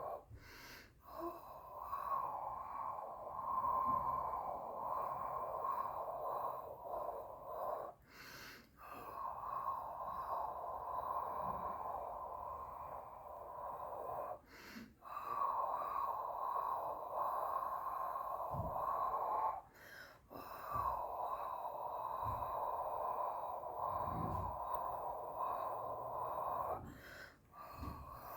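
A person's breathing: long breaths out of about five to six seconds each, broken four times by a short quick breath in.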